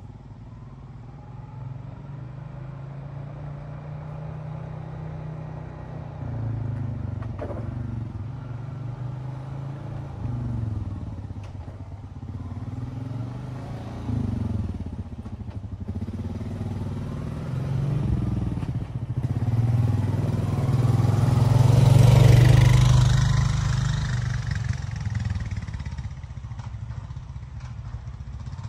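Honda Rancher 420 ATV's single-cylinder engine running as it is ridden, the revs rising and falling. It grows louder, is loudest as it passes close about three-quarters of the way through, then fades.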